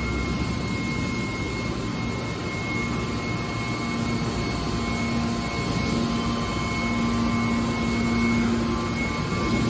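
Hydraulic car baler running: a steady machine hum with a few held whining tones, a low tone growing stronger from about four seconds in.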